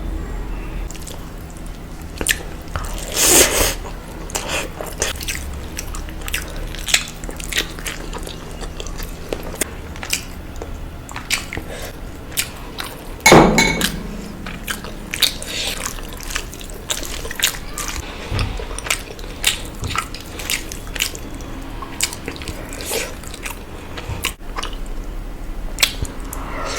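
Close-miked eating: a person biting and chewing chicken and egg curry, with frequent wet clicks and smacks, and two louder, longer sounds about 3 and 13 seconds in.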